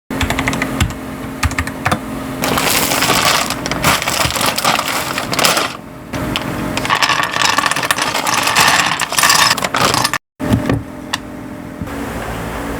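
Plastic keycaps clicking and clattering as they are handled, with two long stretches of rustling and a brief dropout about ten seconds in.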